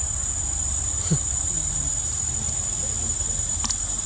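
Insects droning with one steady high-pitched tone, over a low rumble. A short falling squeak comes about a second in.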